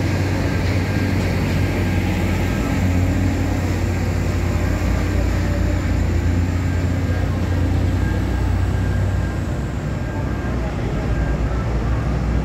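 Steady, low diesel engine rumble of a heavy cargo truck driving past close by, easing off a little near the end.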